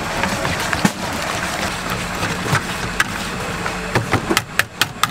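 Wire balloon whisk beating thin batter in a plastic bowl, with wet swishing and irregular sharp clicks of the wires against the bowl, several in quick succession near the end. A steady hum, like a running engine or traffic, runs underneath.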